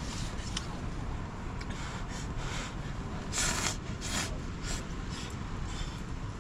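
Gale-force wind buffeting the microphone in a steady low rumble, with a few short bursts of rustling or scraping, the loudest about halfway through.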